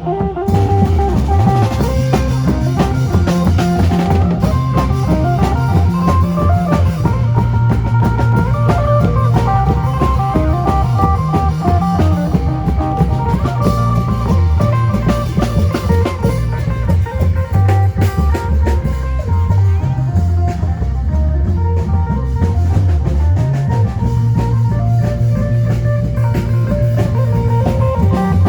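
Isan band music in lam phloen style: a phin (plucked lute) melody over drum kit and bass guitar, played loud and continuously.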